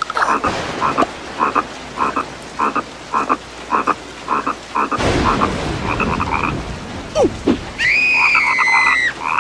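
Frogs croaking in an even rhythm, about two croaks a second, over rain. About halfway through there is a noisy rush, and near the end a high, drawn-out cry from a cartoon larva.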